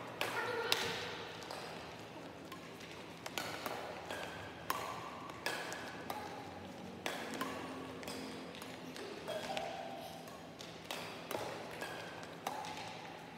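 Badminton rackets striking a shuttlecock during a rally: a dozen or more sharp taps at uneven spacing, roughly one a second.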